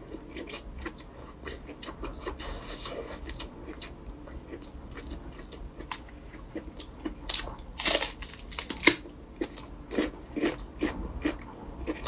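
A person chewing a mouthful of red-braised pork belly, a string of short mouth clicks and smacks that grow louder and more frequent in the second half.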